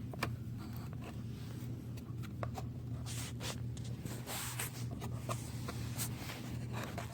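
Small pliers clicking and scraping against the small plastic parts of a 1998 Audi A4 door lock actuator as a piece is worked loose: irregular short clicks and brief rasps over a steady low hum.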